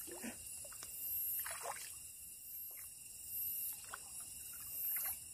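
A few short splashes and drips of water as a hooked catfish is brought in from the water.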